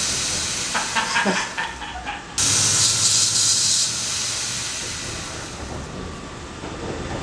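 Combination bench grinder and belt sander motor whirring with a loud hiss, winding down at first, then switched on abruptly about two seconds in and cut off again about a second and a half later, spinning down slowly. The power is being switched on and off through a gesture-trained smart plug.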